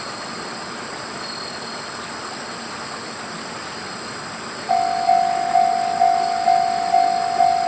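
Railway level crossing alarm starting up about two-thirds of the way in. It is a single clanging tone struck about twice a second, each strike fading before the next, signalling that a train is approaching the crossing.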